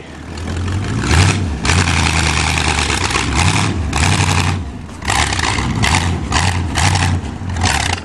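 Car engine running hard at high revs as the old sedan drives across a grass field, the pitch stepping up about a second in and easing off briefly about halfway through.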